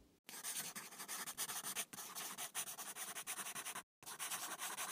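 Rapid sketching strokes scratching across paper, a dense run of quick scratches with a brief break about four seconds in.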